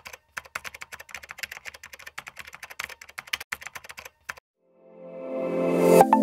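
Fast, irregular computer-keyboard typing clicks, a sound effect for text typing out on screen, stopping about four seconds in. Soft music then fades in with held tones near the end.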